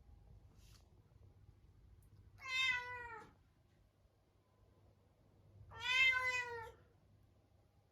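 A Munchkin cat meowing twice, two drawn-out plaintive meows a few seconds apart. He is calling while shut alone in a separate room.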